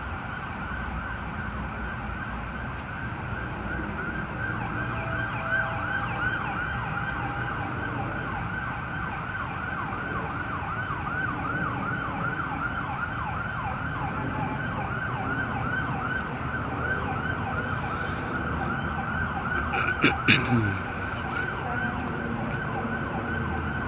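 Emergency-vehicle siren yelping steadily, a rapid rising-and-falling tone repeated over and over. A few sharp knocks come about twenty seconds in.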